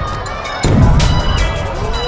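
Music with a steady low beat; a loud, noisy surge comes in about half a second in.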